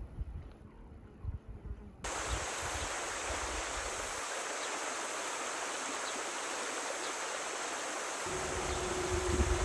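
Steady rushing of a river's flowing water, cutting in abruptly about two seconds in after a stretch of faint low wind rumble. A faint steady hum joins near the end.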